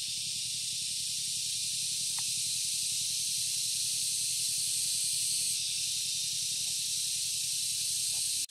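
A steady high-pitched hiss, with a faint, rapid low pulsing beneath it and a few faint ticks.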